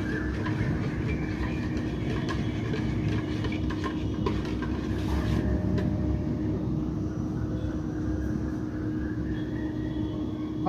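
A steady low rumble with a constant hum runs throughout, with scattered light clicks and clinks of kitchen utensils.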